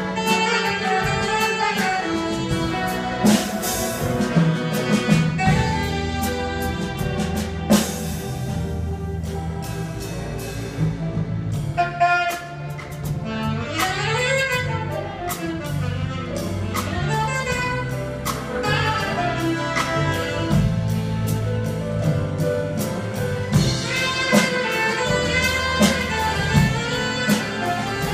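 Symphony orchestra with drum kit and electric guitar playing a jazz-style piece, a saxophone carrying the solo line over a steady drum beat, with quick runs up and down in the middle.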